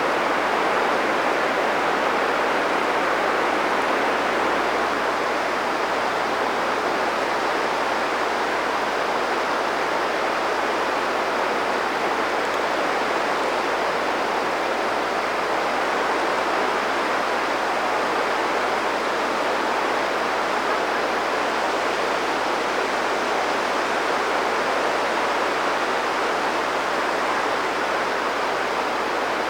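Steady rushing of flowing water, an even noise with no breaks or separate events.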